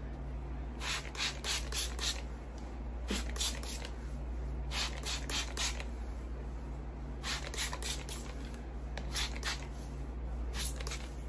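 Trigger spray bottle of water squirted onto hair in quick runs of three to five sprays, with short pauses between the runs.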